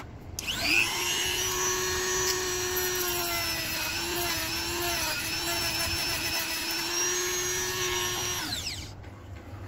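Handheld rotary tool with a sanding drum spinning up, running at a steady high whine for about eight seconds, then winding down. Its pitch sags slightly a couple of times in the middle as it sands the plastic of an LED number-plate light.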